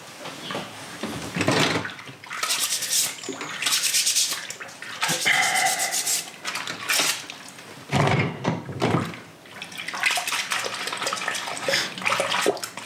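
Dishes being washed by hand in a kitchen sink: water splashing and sloshing, with dishes clinking and knocking against each other in irregular bursts.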